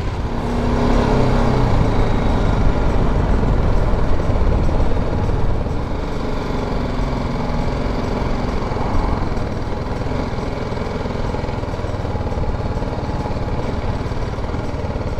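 Motorcycle engine running under way with road and wind noise, louder for the first few seconds and easing off about a third of the way in.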